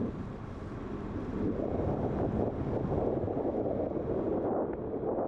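Wind buffeting the microphone aboard a coaster ship under way, a gusty low noise that grows stronger about a second and a half in.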